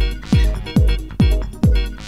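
Minimal techno track: a deep four-on-the-floor kick drum, its pitch dropping on each hit, a little over twice a second, with short repeating synth chords and high ticking percussion between the beats.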